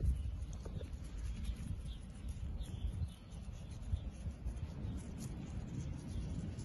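Outdoor ambience: an uneven low rumble of wind on the microphone, with a few faint bird chirps.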